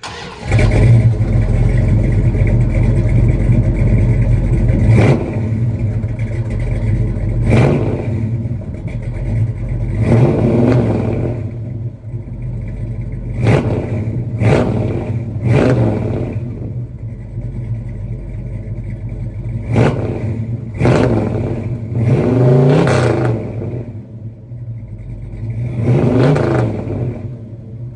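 1972 Dodge Charger's big-block V8 starting up and idling with a lumpy rumble, blipped repeatedly with short revs about ten times.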